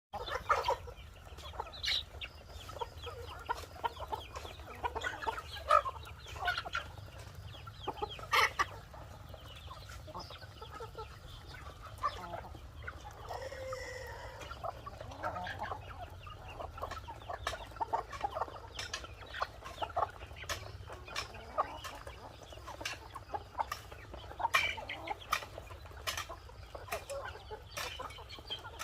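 Chickens clucking, with many short calls throughout and a few sharp clicks among them.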